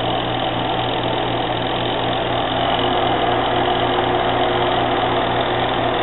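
Della twin-tub mini washing machine running with a steady, even motor hum.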